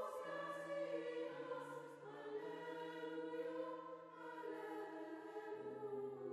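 Choir singing slow, long-held chords.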